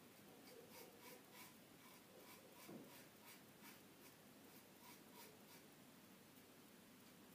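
Faint scraping of a Mühle R41 double-edge safety razor cutting lathered one-day stubble on a third pass, in short strokes about three a second that thin out near the end.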